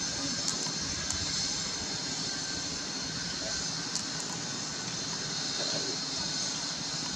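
Steady outdoor background noise in tree canopy: a continuous high hiss over a low rumble, with a few faint clicks.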